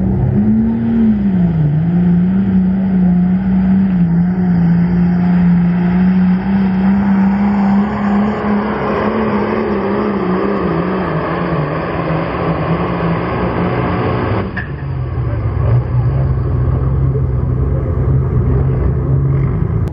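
Turbocharged diesel engine of an International Harvester pulling tractor at full power, dragging a weight-transfer sled; its pitch wavers as the load comes on, then holds steady under strain. About three quarters through it cuts back suddenly to a lower, steady engine note as the pull ends.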